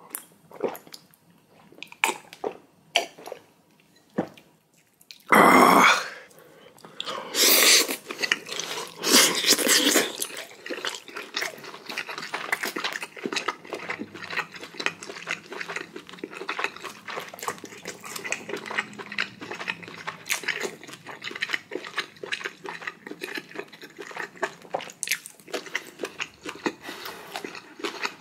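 A person eating with loud chewing, biting and smacking in a dense, fast run of wet clicks. It starts with a few separate clicks, then a loud burst about five seconds in.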